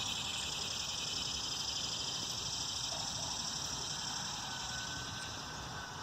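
Steady outdoor background noise: an even high hiss with no distinct call or voice, and a faint thin tone late on.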